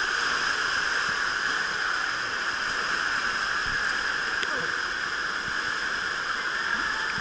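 Steady rushing of water in a water-slide splash pool, with water lapping close around the camera.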